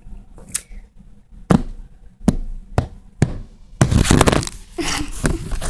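Five sharp taps or knocks close to the phone's microphone, then, about four seconds in, a louder stretch of rustling handling noise as the phone is moved.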